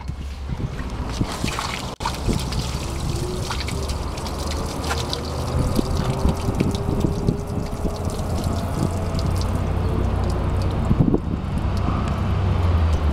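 Water pouring and splashing from the underbody drain hole of a Kia Cerato onto a puddle on asphalt, the stream thinning toward a trickle near the end. It is water that had collected in the car's spare-wheel well in the boot being let out.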